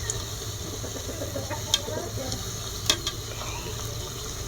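Light sizzling from a pan of cooking oil heating for frying mandazi, which is not yet very hot. Two sharp clicks stand out, the second the louder.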